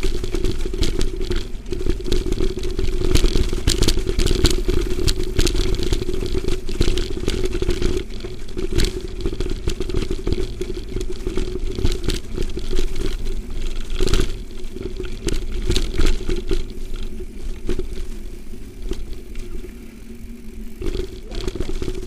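Mountain bike ridden over a bumpy dirt track, heard from a bike- or body-mounted action camera: wind rumble on the microphone with frequent clattering knocks from the bike and camera mount, over a steady hum that eases off after about sixteen seconds.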